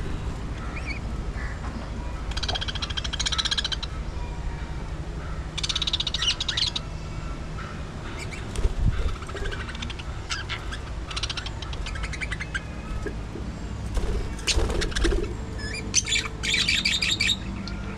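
Budgerigars chattering in rapid, buzzy warbling bursts with scattered chirps and squawks, over a steady low hum. A few sharp knocks are heard, the loudest near the middle and about three quarters of the way through.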